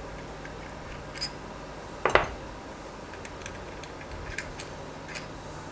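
Scattered light metallic clicks and clinks of a socket wrench and cap screws being worked on a Rotax engine's gearbox housing, with one louder clink about two seconds in.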